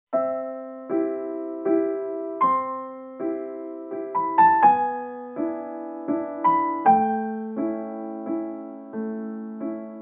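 Piano music: a slow melody of chords struck about every three-quarters of a second, each ringing and fading, with a quicker run of notes about four seconds in.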